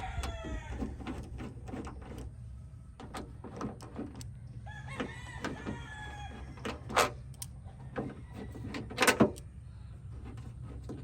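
Backyard chickens calling, with a rooster crowing about five seconds in. A couple of sharp knocks or clicks from work on a car's tailgate, about seven and nine seconds in, are the loudest sounds.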